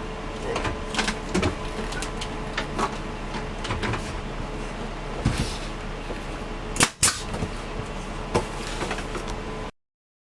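Scattered knocks and clicks of hand work on wood and tools, over a steady low hum, with two sharp loud cracks in quick succession about seven seconds in; the sound cuts off abruptly shortly before the end.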